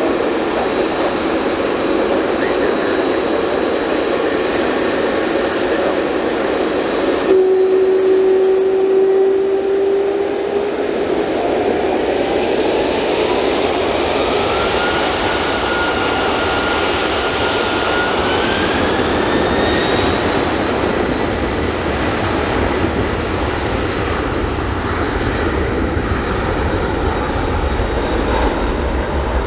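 Boeing 767-300F's jet engines spooling up to takeoff power: a whine rises in pitch in two steps, from about ten to twenty seconds in, over a steady jet roar. A deep rumble grows near the end as the freighter begins its takeoff roll.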